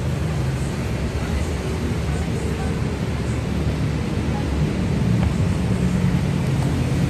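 Steady low background rumble at an even level, with no distinct clicks or knocks.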